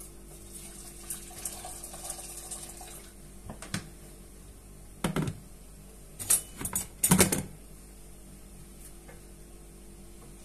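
Water poured from an electric kettle into a steel cooking pot, a soft splashing for about three seconds. Then several sharp clattering knocks of kitchenware, with the loudest cluster about seven seconds in.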